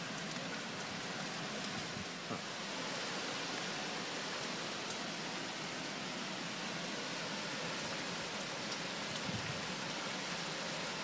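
Steady rain falling, an even hiss, with one faint knock about two seconds in.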